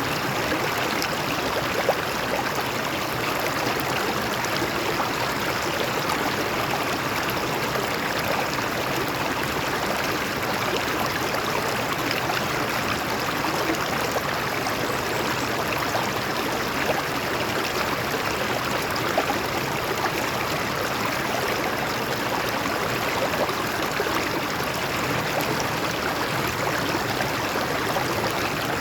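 A stream of water flowing over rocks, a steady rushing and splashing.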